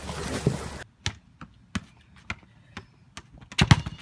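A basketball smacking on asphalt and against a brick wall: a handful of sharp, separate impacts at irregular spacing, the loudest pair about three and a half seconds in. For about the first second, a rushing splash of icy water and slush that cuts off suddenly.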